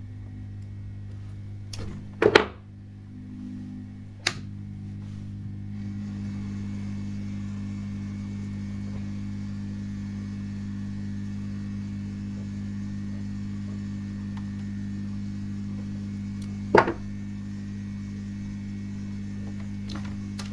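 A steady electrical mains hum, with three sharp clicks from working on the cable's small wires: two close together about two and four seconds in, and one near the end.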